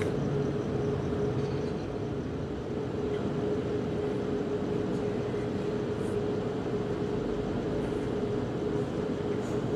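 Steady low mechanical rumble with one constant humming tone, unchanging throughout, with a few faint clicks.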